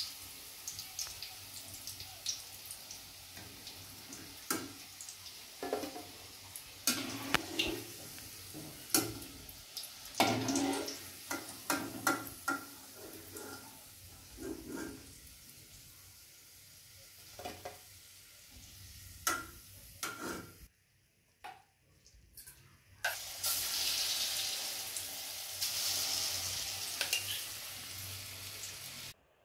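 Chicken kebab pieces deep-frying in hot oil in a kadai, sizzling steadily, with many short clinks and scrapes of a slotted steel spoon as pieces are lifted out. The sizzle stops briefly a little past two-thirds through, then comes back louder and more even.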